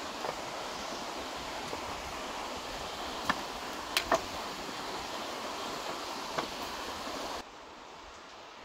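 Steady rush of river rapids, water running fast over rocks, with a few short sharp knocks over it. Near the end the rush drops suddenly to a quieter, duller hiss.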